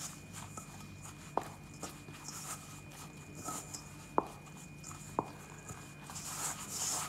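Hand kneading a soft maida (flour) dough in a stainless steel bowl: soft rubbing and squashing of the dough, with three sharp taps against the metal bowl, over a steady low hum.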